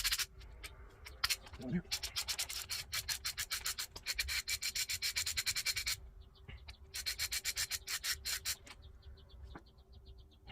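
Hand ratchet wrench clicking in quick runs of about eight clicks a second, backing out engine front cover bolts, with fainter, slower clicks near the end.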